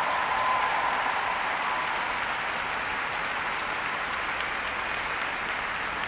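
A large crowd applauding steadily. The applause swells just before the start and then holds at an even level.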